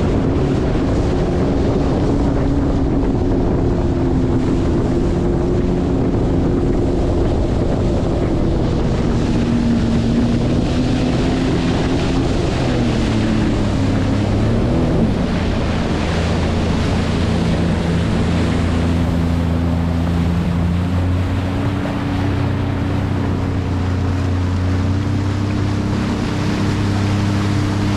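Sea-Doo Fish Pro personal watercraft's engine running under way, its pitch dipping about halfway through and then climbing back up, with water rushing and wind buffeting the microphone.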